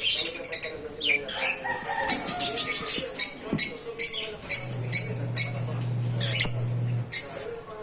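Aviary birds calling: a rapid run of short, high chirps, several a second. A low steady hum joins in for a couple of seconds in the second half.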